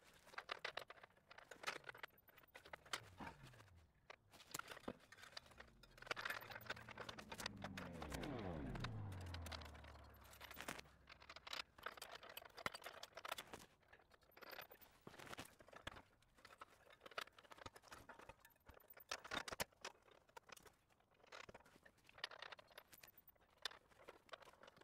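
Faint scattered clicks, knocks and scrapes as a steel tow-hitch receiver and its bolts are worked into place by hand under a car. Around six to ten seconds in, a low hum slides down in pitch, the loudest sound here.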